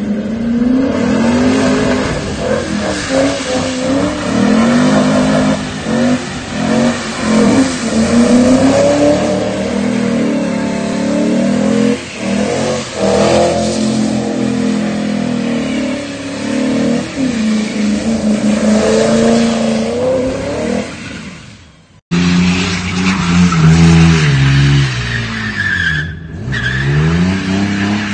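Cars revving hard and holding high revs through wheelspin burnouts and donuts on wet tarmac, the engine pitch swinging up and down as the throttle is worked. The sound cuts out suddenly about 22 seconds in, then picks up again with a ute doing donuts.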